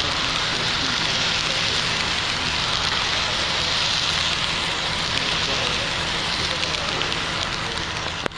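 HO scale model freight cars rolling close past on the track: a steady, even hiss of small metal wheels running on the rails, with people talking in the background. The sound cuts off suddenly near the end.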